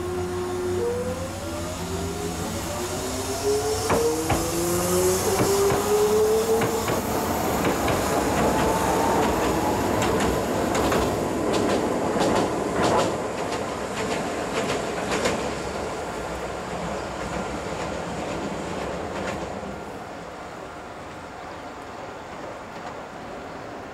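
A Hiroshima Electric Railway tram passing. Its electric motors whine with several tones climbing steadily in pitch over the first ten seconds as it accelerates, then its wheels clack over rail joints in a run of sharp clicks, and the sound fades away near the end.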